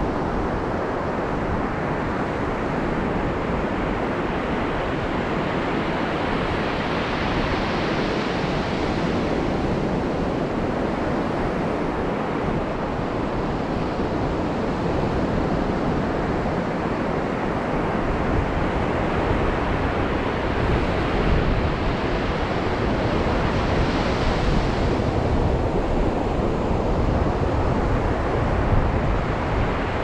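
Ocean surf: a steady wash of waves, with a wave swelling and breaking about a quarter of the way in and another near the end.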